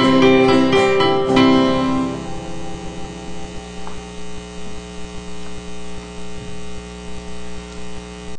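Last notes of the instrumental accompaniment to a sung church psalm ringing out and fading away over the first two seconds or so, leaving a steady electrical hum.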